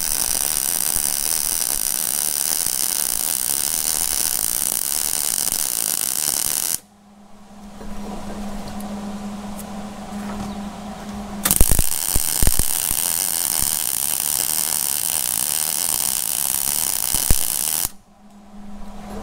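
Wire-feed welder arc crackling steadily as a build-up bead is laid on a worn tractor clutch pedal shaft. It stops about seven seconds in, leaving a steady low hum. A second bead starts with a sharp pop near the middle and crackles until shortly before the end.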